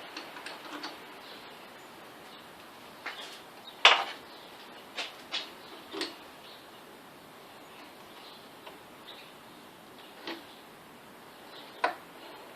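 Scattered sharp clicks and knocks as a 4-jaw wood lathe chuck is handled and fitted onto a mini lathe, the loudest knock about four seconds in.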